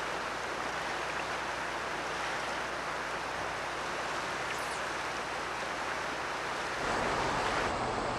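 Steady rush of a shallow river running over rocks. Near the end the sound changes abruptly and gets a little louder.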